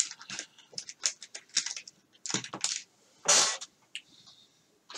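Rummaging through a supply of heat-shrink tubing and small parts: a scatter of light clicks and rattles with a couple of short rustles.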